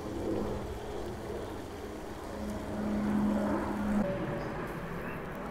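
Oil sizzling and bubbling in a cast iron wok of frying chicken and tomatoes over a wood fire. Under it runs a steady low hum that cuts off suddenly about four seconds in.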